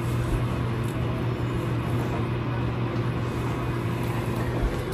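Steady low electrical hum with a soft even hiss, the sound of a running appliance motor or fan.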